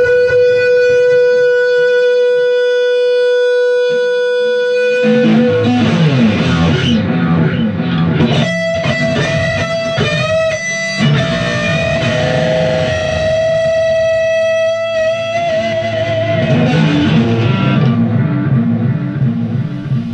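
Fender Stratocaster electric guitar played loud through a tube amp. It opens on one long sustaining note, breaks into chords and riffs about five seconds in, holds a second long note in the middle that bends slightly at its end, then goes back to strummed chords.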